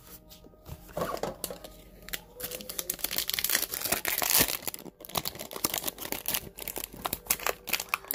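Plastic packaging crinkling and rustling as it is handled, with scattered sharp clicks and taps; the crinkling is thickest a few seconds in.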